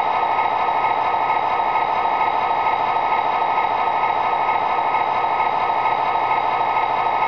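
Proto-Sound 2.0 diesel prime mover sound from an MTH Premier Union Pacific SD40-2 model locomotive, playing steadily through its onboard speaker while the model stands still, an idling diesel engine.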